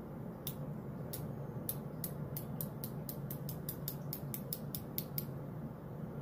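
Puregon Pen injector clicking as its button is pressed in and the dose is delivered: about nineteen light clicks, spaced out at first, then quickening to about five a second, stopping suddenly near the end. A low steady hum runs underneath.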